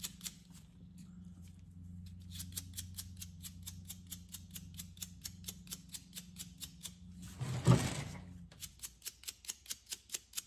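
Rapid, even ticking of a thumb flicking the bristles of a cut-down chip brush to spatter thinned paint, a few flicks a second with a short lull about a second in. A brief louder thump comes about three-quarters of the way through, and a low steady hum stops soon after it.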